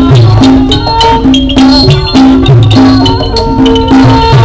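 Thai likay stage accompaniment music: a melody of held notes over steady drumming and rattling percussion, played loud through the stage sound system.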